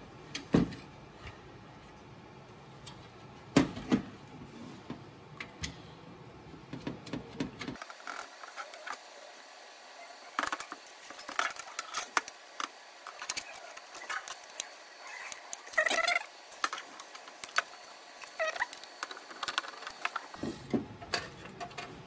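Sharp metallic clicks, clinks and rattles from a Torx T15 screwdriver working the screws of an HP DL380p Gen8's sheet-metal PCIe riser cage while the cage is handled, with two loud clicks in the first few seconds and a denser run of small clinks later.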